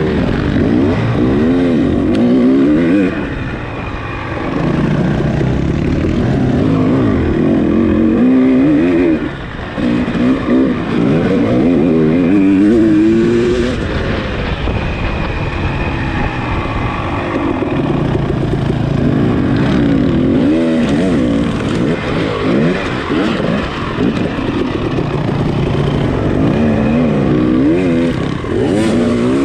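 Off-road dirt bike engine racing through a trail, revving up and dropping back again and again as the throttle is worked and gears change, the pitch climbing and falling every second or two. There is a brief dip in loudness a little past the middle.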